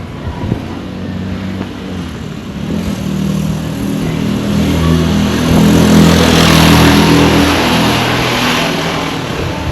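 A motor vehicle drives past on the road. Its engine and tyre noise grow louder to a peak about halfway through, then fade.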